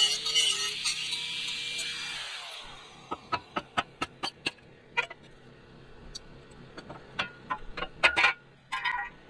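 Angle grinder cutting through a rusted steel cattle-grid bar, then spinning down about two seconds in. A series of sharp, irregular metallic clanks follows as cut steel bars are knocked and lifted out of the grid.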